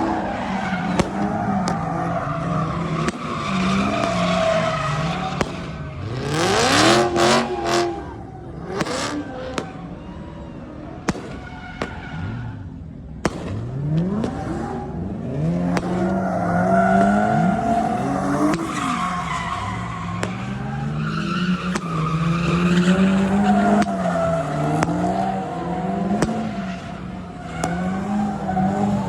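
A car engine revving hard and repeatedly, its pitch swinging up and down as the car drifts, with tyres skidding and squealing on pavement. Sharp pops break in now and then, loudest in a burst around a quarter of the way in.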